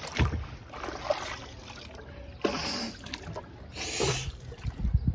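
Wooden paddle of a shikara dipping and pulling through lake water: two swishing, splashy strokes about a second and a half apart.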